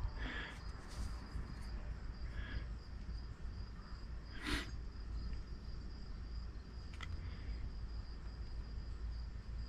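Quiet room tone: a low hum under a faint, steady, pulsing high-pitched tone, with a few soft handling sounds as a chainsaw piston is turned over in the hands, the sharpest a short click about four and a half seconds in.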